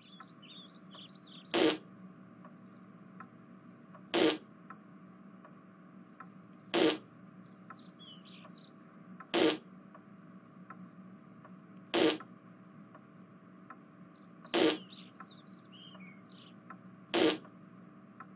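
A short farting sound, repeated seven times at even intervals of about two and a half seconds.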